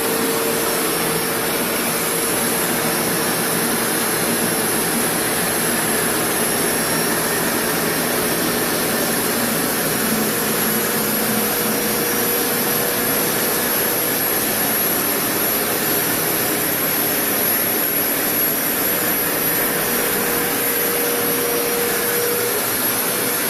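Rug Doctor Deep Clean carpet cleaner running steadily over carpet, its suction motor giving a continuous whine with a steady hum under a wide hiss.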